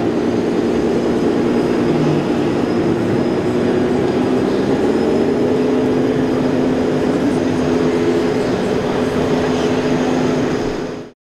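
A 1:14-scale RC Scania truck running, a steady diesel-like engine drone with a rumble beneath it; its pitch rises slightly about halfway through, and it cuts off abruptly near the end.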